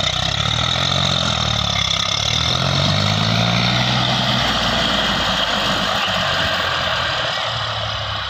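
Diesel tractor engine working under load while hauling a loaded paddy trolley across a soft field. Its pitch rises and falls over the first few seconds, then it runs on as a steadier low rumble. The tyres are sinking into the ground.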